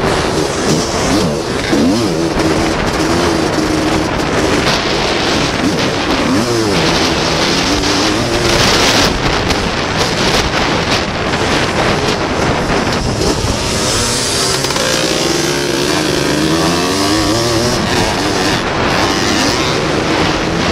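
Racing ATC three-wheeler engine at hard throttle, its pitch climbing and dropping again and again as the rider revs and shifts, heard through heavy rushing noise on the onboard microphone.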